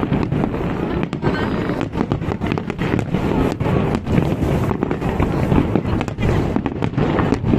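Aerial firework shells bursting in rapid succession: a dense, continuous barrage of booms and crackles.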